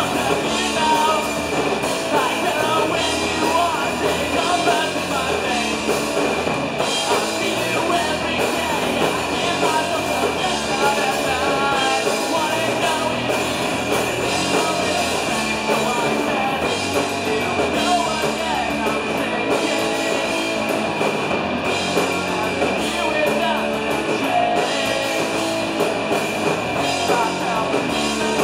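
Punk rock band playing live: electric guitars and drum kit, with a singer at the microphone.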